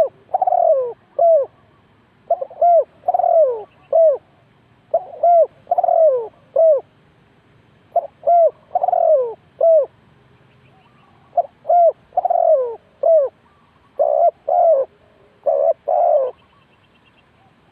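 Spotted dove cooing: phrases of a few low notes, a longer falling coo between shorter ones, repeated about every three seconds. Near the end the phrases change to quicker paired notes.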